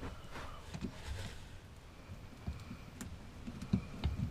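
Scattered light clicks and soft knocks from hands handling the fittings around an RV fresh-water pump. A sharper click comes about three seconds in, and a few knocks follow near the end.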